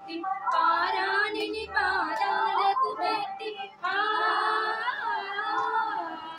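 A group of women singing a devotional song together in long held phrases, with a brief pause just past halfway.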